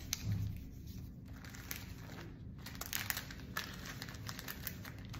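Paper dollar bills and a clear plastic binder pocket crinkling and rustling as the bills are handled and slid into the pocket, with scattered small clicks.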